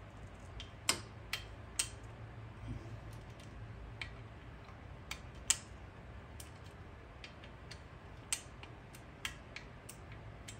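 Torque wrench and socket on cam cap bolts: a dozen or so sharp, scattered metal clicks as the bolts are brought up to 35 inch-pounds in a criss-cross pass, the loudest about five and a half seconds in.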